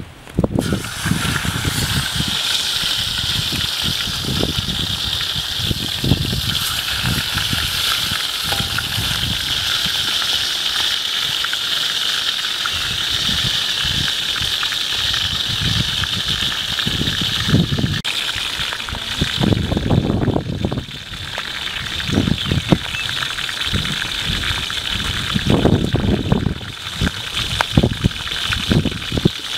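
Whole fish sizzling in hot oil in a steel wok over a charcoal stove. The sizzle starts suddenly as the fish goes into the oil and then holds steady as it fries.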